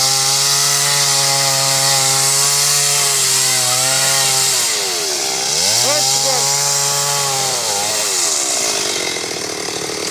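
Chainsaw running at high revs, cutting into wood with a steady engine note over the hiss of the chain. About halfway the revs sag and climb back, and near the end they drop away to a lower, rougher sound.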